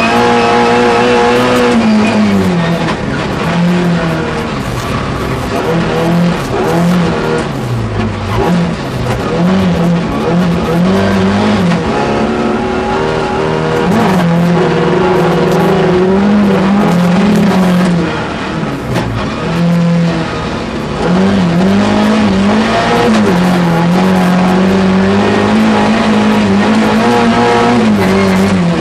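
Race car engine at high revs heard from inside the cabin, its pitch climbing and falling again and again as the driver lifts and shifts, with a few brief drops in revs and loudness.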